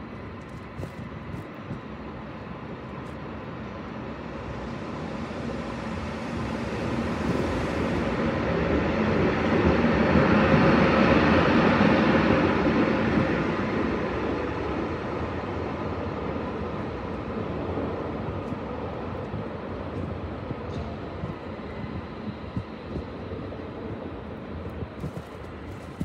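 VR Sr3 (Siemens Vectron) electric locomotive passing through a station: its rumble builds as it approaches, is loudest as it goes by about ten seconds in, then fades away.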